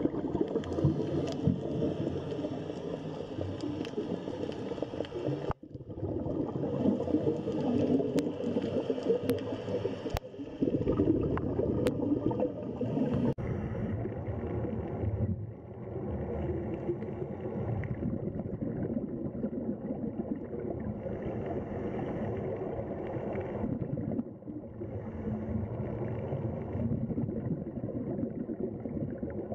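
Muffled underwater noise, a low steady rushing and bubbling of water. Its character changes abruptly a few times.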